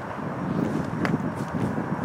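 Wind buffeting the microphone: an uneven low rumble, with a single light click about halfway through.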